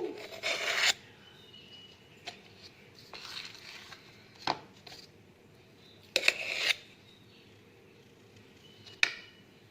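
Kitchen utensils clinking and scraping in a few separate knocks and scrapes as murukku batter is loaded into a string hopper press. The loudest scrape comes a little after six seconds and a sharp click near the end.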